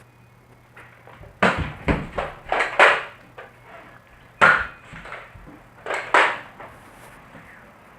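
A run of sharp thwacks and knocks in a small room, about eight in all: five in quick succession, one more a second and a half later, then two close together.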